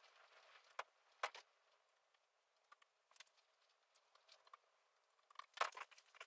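Near silence with a few faint, sharp clicks and taps: two about a second in and a short cluster near the end.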